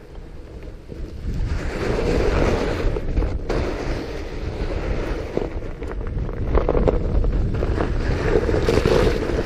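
Wind rushing over the camera microphone as a fat bike rolls down a snowy trail, mixed with the rumble and crunch of its 4.5-inch tires on snow. It swells about a second in as the bike picks up speed and then stays loud.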